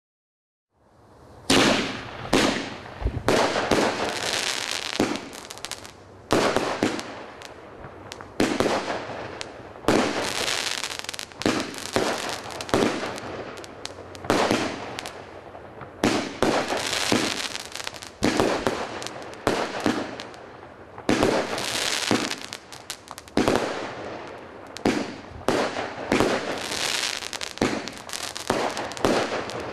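A large-bore 50-shot firework cake firing shot after shot: sharp bangs about every one to two seconds, each trailing off into hiss and crackle. The first shot goes off about a second and a half in.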